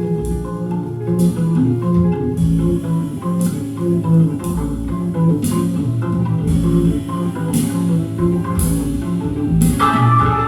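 Music with a steady beat, about one drum or cymbal hit a second over a moving bass line.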